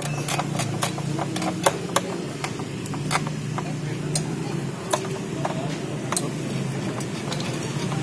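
Irregular sharp metallic clicks and taps from steel screwdriver shafts knocking in the slots of a thin sheet-metal cover inside an all-in-one PC as it is worked into place, over a steady low hum.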